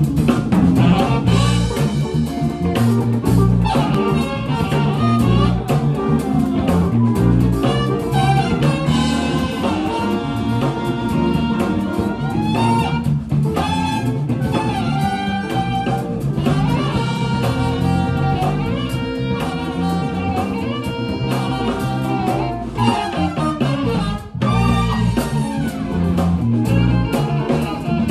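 Live jazz band playing, with guitar and a drum kit.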